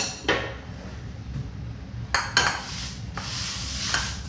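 Metal ladle scraping and stirring inside a stainless steel stockpot of broth: a few short scrapes, then a longer scrape near the end.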